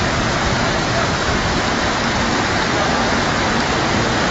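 Floodwater rushing past in a steady, loud wash of water noise.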